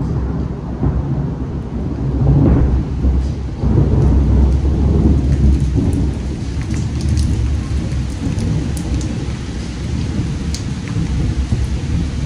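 Thunder rumbling over steady rain, the rumble strongest in the first few seconds and easing off, with scattered sharp raindrop ticks later on.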